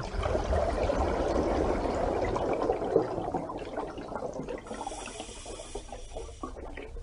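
Rushing, gurgling water with a low rumble underneath. About two-thirds of the way through it thins out and faint high steady tones come in, then it cuts off abruptly shortly before the end.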